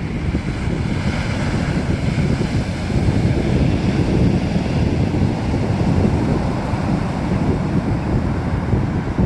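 Sea surf rushing and breaking on the shore, heard through heavy wind buffeting the microphone as a continuous low rumble.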